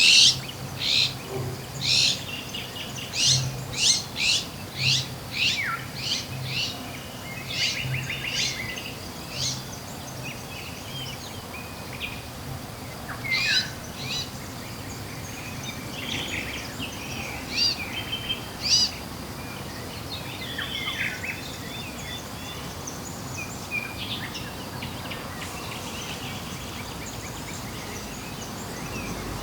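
Wild birds calling and singing: a quick run of sharp, high chirps, one or two a second, through the first ten seconds or so, then scattered, varied calls, over a steady outdoor hiss.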